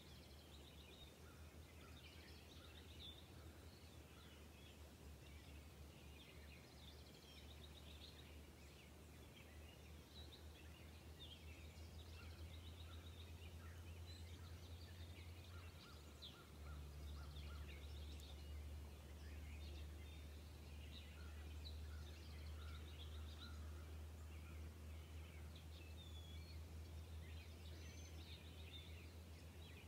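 Faint outdoor ambience: small birds chirping and twittering in the distance over a steady low hum.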